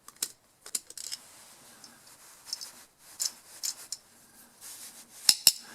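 Light metal clicks and scrapes as a screwdriver works at the brass main jet of a small-engine carburetor, with two sharper clicks near the end.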